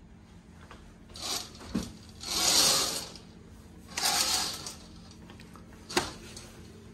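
Window curtains being drawn back along their rail: three rasping swishes of fabric and sliding runners, the middle one longest and loudest, then a single sharp click near the end.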